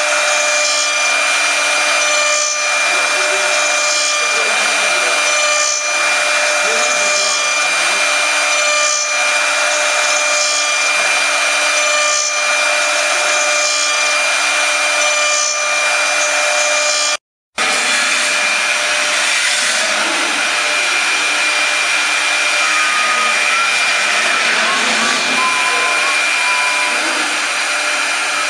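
Multi-spindle CNC wood carving machine at work: its high-speed router spindles whine steadily at a fixed pitch over the hiss of the cutters carving wooden chair legs, with a swell of cutting noise about every second and a half. The sound cuts out briefly about two-thirds through, then the spindle whine and cutting hiss carry on, the pitch wavering a little near the end.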